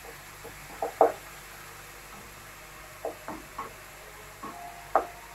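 Wooden spatula knocking against a nonstick frying pan while stirring frying chicken: a handful of separate knocks, the loudest about a second in and another near the end, over a faint steady sizzle.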